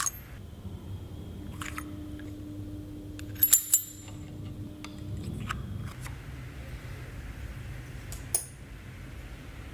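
Metal parts of a Lomography Daguerreotype Achromat lens being handled, making a few sharp clicks and clinks. The loudest is a quick cluster about three and a half seconds in. A faint steady hum runs through the first half.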